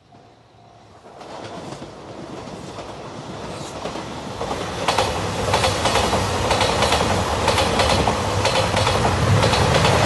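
JR Shikoku 2700-series diesel express train approaching and passing, growing steadily louder, with its wheels clicking rapidly over the rail joints from about five seconds in and a low engine hum near the end. A level-crossing alarm bell rings in the first second.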